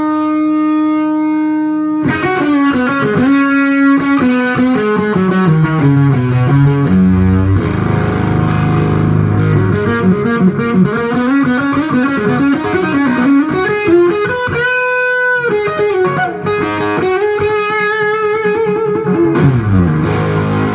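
Electric guitar on its bridge pickup played through a 1970 Dallas-Arbiter Fuzz Face with TFK BC108 silicon transistors, into an amp. A held fuzzed note opens, then riffs with a descending run, a long sustained note near the middle, and a falling slide just before it cuts off.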